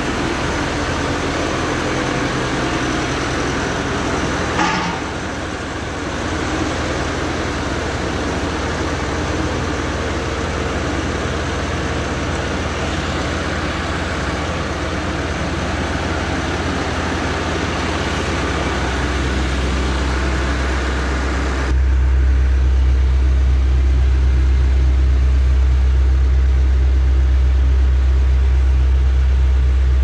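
Diesel engine of an Ajax ARGO 4000 self-loading concrete mixer idling steadily, with a short knock about five seconds in. About two-thirds of the way through, the low hum suddenly grows louder and the hiss above it drops away.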